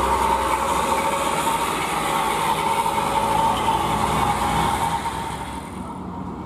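UD Quester heavy truck's diesel engine labouring as the truck crawls uphill loaded with steel rebar: a steady engine drone with a prominent high whine. It fades out about five seconds in as the truck moves away.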